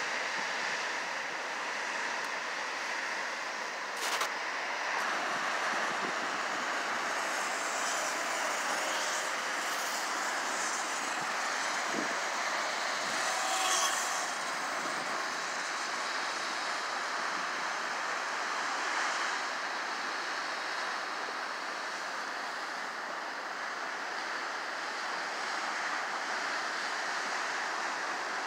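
Ocean surf breaking against a rocky shore, a continuous wash of crashing waves, with one louder surge about halfway through.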